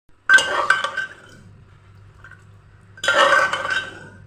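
Metal kitchen utensils clattering and clinking against cookware in two bursts, each about a second long, one near the start and one near the end.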